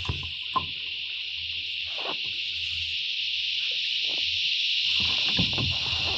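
Cicada chorus: a continuous steady high-pitched buzz that slowly grows louder, with a few light knocks and taps scattered through it.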